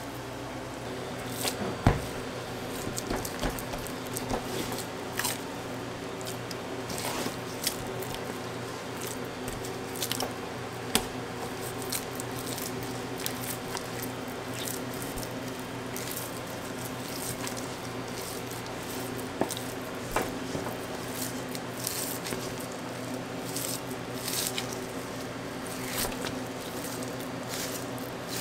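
Knife slicing raw beef on a plastic cutting board: wet, squishy cuts with scattered clicks and knocks as the blade meets the board, the sharpest about two seconds in. A steady machine hum runs underneath.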